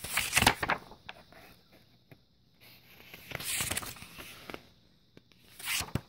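Catalog pages being handled and turned, paper rustling in three bursts: the loudest right at the start, a longer one around three and a half seconds in, and a short one near the end.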